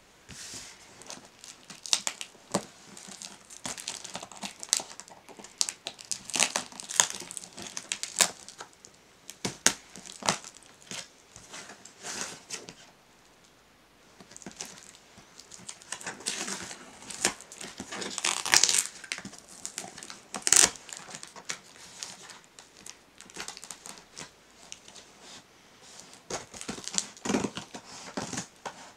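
Packing tape on a cardboard shipping box crackling and tearing as it is picked at, cut with scissors and peeled away, in irregular rips and crinkles with a brief pause about halfway through.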